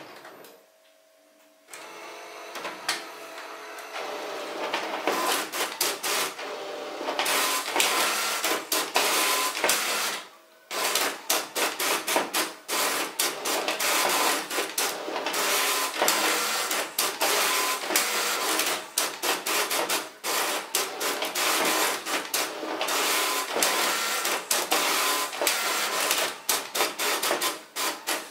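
Epson EcoTank ET-5850 inkjet printer starting up and printing a two-sided job. Feed rollers whir and the print head carriage sweeps back and forth in quick passes, with short regular dips between them. There is a brief pause about ten seconds in, then printing resumes.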